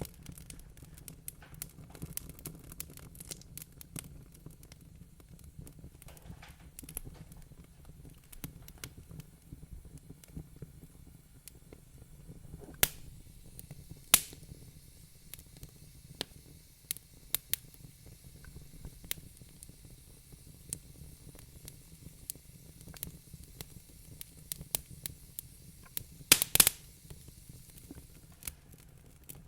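Wood fire crackling in a fireplace: a steady low rumble with frequent small pops, a couple of louder snaps about halfway through and the loudest cluster of snaps near the end.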